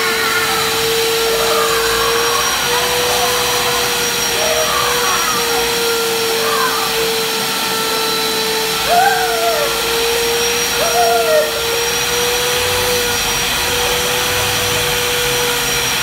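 Vacuum cleaner running steadily, a constant hum and rushing hiss with a thin high whine from its motor. Two short, arched vocal cries rise over it about nine and eleven seconds in.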